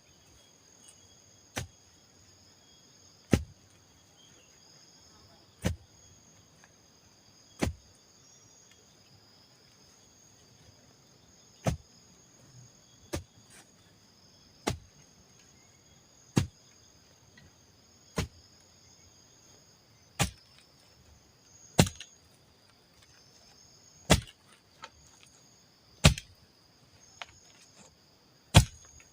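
A steady series of sharp chopping strikes on wood, about one every one and a half to two seconds with a short pause partway through, over a constant high-pitched insect drone of cicadas or crickets.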